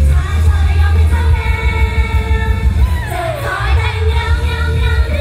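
Live pop performance: young women singing into handheld microphones over a loud amplified backing track with heavy bass. About three seconds in, a voice slides down in pitch.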